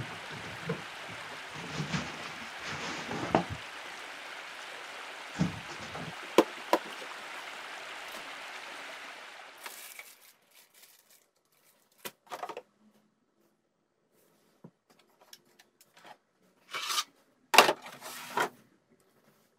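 Hard plastic chainsaw carrying case being unlatched and opened, with several sharp plastic clicks and knocks over a steady hiss. Then a few short bursts of rustling and scraping as the saw is handled in its plastic wrapping and lifted out of the case.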